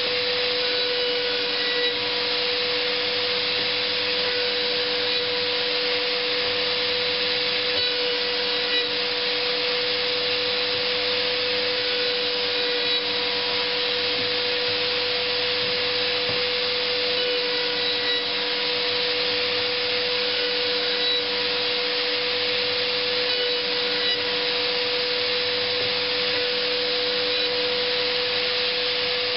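Router mounted in a router table running at a steady speed with a constant high whine while a hardwood board is fed past its round-over bit.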